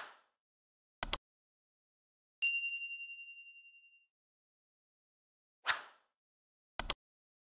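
End-screen subscribe-button sound effects: a short whoosh and a quick double mouse click, then a bright notification ding that rings for about a second with a pulsing fade. The whoosh and double click come again near the end.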